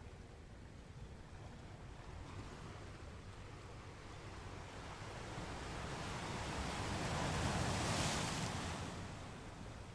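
Ocean waves breaking on the shore: a low rumble of surf with one wave building to a rushing crash about eight seconds in, then washing back.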